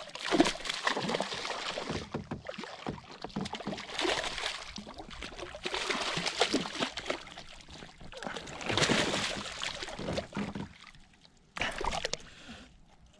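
Water splashing and sloshing in irregular surges, with scattered knocks, around a small boat on the lake.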